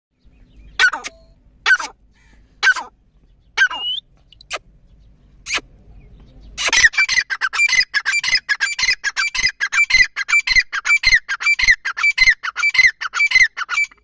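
Grey francolin calling: single falling notes about once a second, then from about seven seconds in a louder, fast run of repeated notes, several a second, that carries on to the end.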